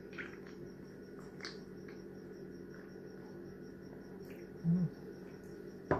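Quiet sips and swallows of iced cola from a glass mug, with a few faint clicks. Under it runs a steady hum and a faint high, evenly pulsing tone. One short, louder low gulp-like sound comes near the end.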